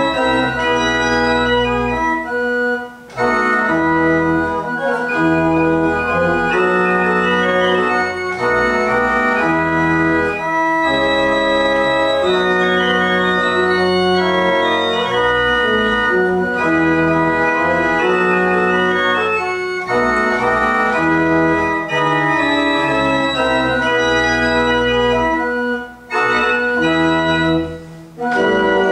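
Pipe organ playing a minuet alone, with sustained chords under a moving melody and brief pauses between phrases, one about three seconds in and two near the end.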